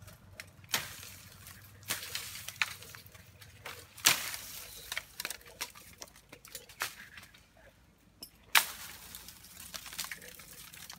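Rustling of bamboo leaves and tree branches with scattered sharp snaps and cracks as a climber moves up through them, the loudest cracks about four seconds in and again near nine seconds.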